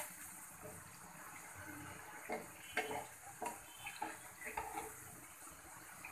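Jackfruit pithas (rice-flour fritters) sizzling steadily as they deep-fry in oil in a pan. A spatula knocks and scrapes against the pan several times from about two seconds in.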